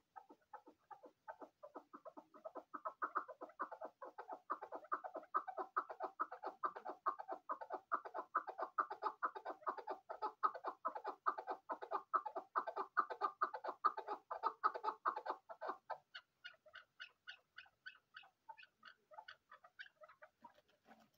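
Chukar partridge calling: a fast run of repeated chuck notes, about five a second, growing louder over the first few seconds and holding for about fifteen seconds, then changing to thinner, higher-pitched notes for the last few seconds.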